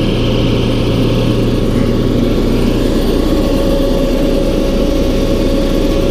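Tractor engine running steadily under a constant drone, driving a hay grinder that is now turning in its correct counterclockwise direction.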